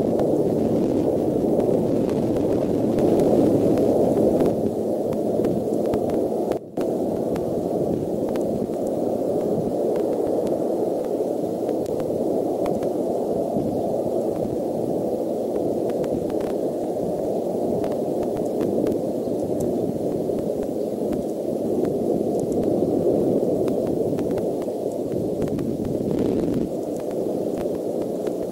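Steady rushing noise picked up by the outdoor nest camera's microphone, cutting out for an instant about seven seconds in.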